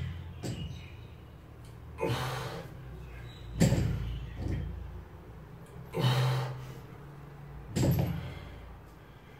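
A 108 kg barbell with rubber bumper plates touching down on the floor at the bottom of each sumo deadlift rep, twice, about four seconds apart. Between the touchdowns come the lifter's hard breaths.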